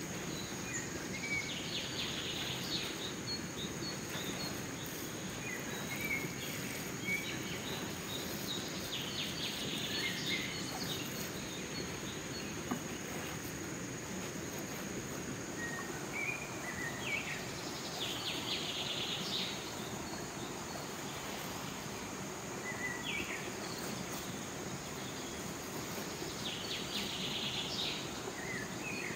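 Outdoor forest ambience: a steady high insect drone, with birds chirping in short bursts every several seconds over a low, even background rush.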